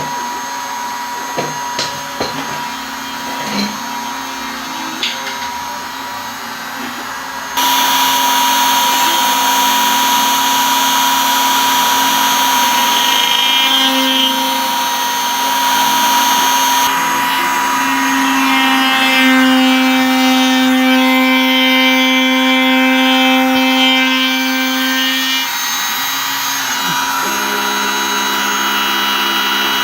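Home-built CNC router running a test cut: the spindle motor runs steadily while the stepper motors whine in tones that change pitch in steps as the axes move. A few light knocks in the first few seconds, then the sound gets louder about seven seconds in.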